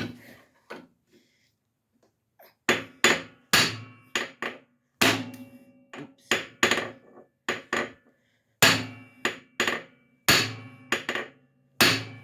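Hammer blows on steel while a pry bar is wedged under the flywheel of a Briggs & Stratton V-twin, working the flywheel loose from the crankshaft. After a few light knocks, a quick run of sharp, metallic, ringing strikes starts a few seconds in, about three a second.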